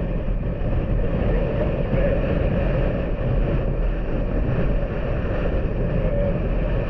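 Honda Super Cub's small single-cylinder engine running steadily under way, with wind and road noise on the helmet or bike-mounted microphone.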